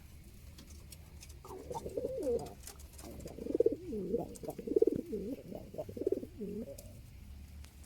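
Domestic pigeon cooing: a run of rising and falling coos that starts about a second and a half in and goes on for about five seconds.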